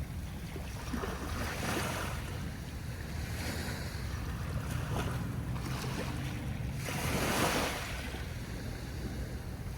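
Small waves washing onto a beach, the surf swelling and fading in several rolls, the loudest about seven seconds in. Wind rumbles on the microphone throughout.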